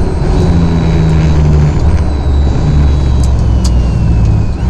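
Truck's engine and tyre noise heard from inside its cab: a loud, steady low drone with a faint high whine slowly falling in pitch, and two sharp ticks a little past the middle.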